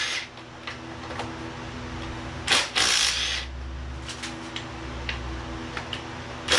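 Cordless impact driver running in a short burst of about a second, about two and a half seconds in, backing out the small 8 mm valve-cover bolts on an engine block on an engine stand, with scattered light ticks of the tool and bolts over a steady low hum.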